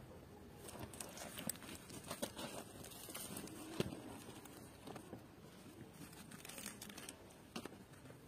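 Crusty tandoor-baked flatbread being torn apart by hand, its crust giving faint, irregular crackles and rustles.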